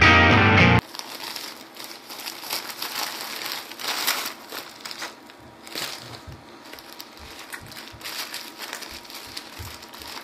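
Bubble wrap and plastic film crinkling and crackling in the hands as a wrapped parcel is handled, a dense run of small irregular crackles. Loud music with distorted electric guitar cuts off suddenly about a second in.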